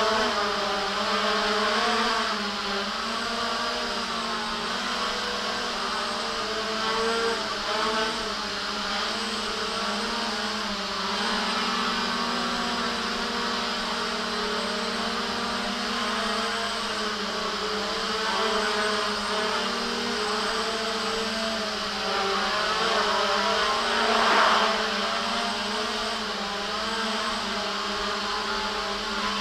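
JJRC X1 quadcopter's brushless motors and propellers buzzing as it hovers and manoeuvres, the pitch wavering constantly with the throttle. One louder swell late on.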